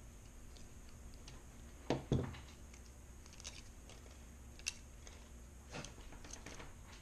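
Klein manual punch-down screwdriver seating and trimming Cat 5 wires in a keystone jack's terminals. Two loud knocks come about two seconds in, then several lighter clicks as further wires are pressed down.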